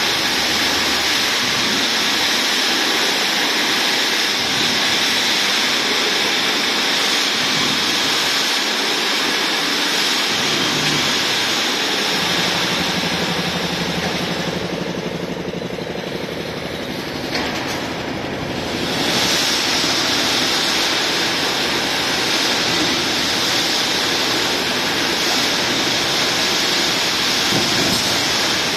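Automatic wire mesh welding machine line running: a loud, steady machine din with no clear rhythm, easing slightly for a few seconds about halfway through.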